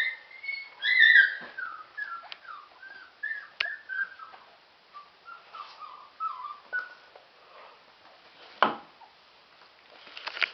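Six-week-old Airedale Terrier puppies whining and yipping: a run of short, high cries, most falling in pitch, loudest about a second in. A single sharp thump near the end.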